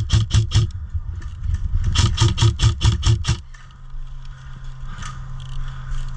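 Airsoft gun firing rapid strings of shots, about six or seven a second: a short string at the start and another from about two to three seconds in. After that a steady low hum.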